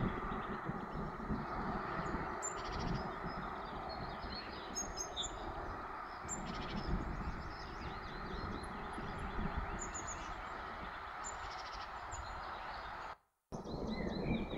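Several birds chirping and calling over a steady background hiss, with the sound cutting out completely for a moment near the end.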